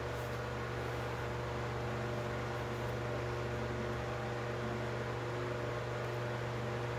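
Electric table-and-wall fan running steadily: a constant motor hum with a few steady tones over an even rush of air.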